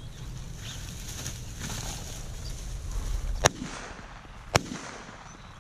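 Two shotgun shots about a second apart, the first louder, over a low steady rumble of wind on the microphone.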